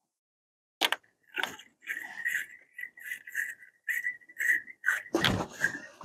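Battery terminal cleaning brush scrubbed back and forth on a battery cable terminal: a sharp click about a second in, then short scraping strokes about two a second with a thin squeaky whistle running through them, and one louder scrape about five seconds in.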